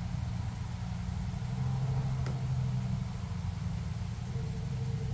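A steady low motor hum with a few steady pitched tones, like an engine idling, and a single faint click about two seconds in.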